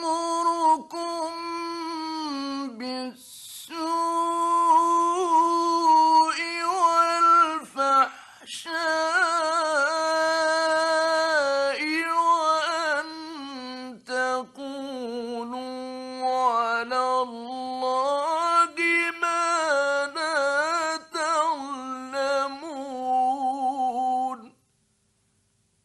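A man's solo voice reciting the Quran in the melodic mujawwad tajweed style, with long held, ornamented phrases and brief pauses for breath. The voice stops a little before the end.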